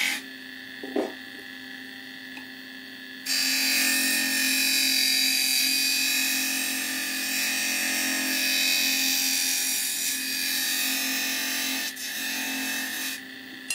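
Wood lathe running with a steady hum, and from about three seconds in a hand-held turning tool scraping into the spinning wooden spindle, a loud even cutting noise of shavings coming off that breaks briefly near the end and stops just before the close.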